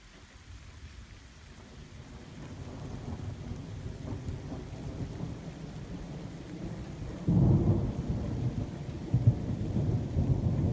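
Rain with low, rolling thunder that builds up and turns suddenly louder about seven seconds in.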